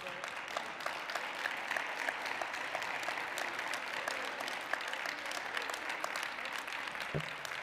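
Congregation applauding: many hands clapping at a steady level.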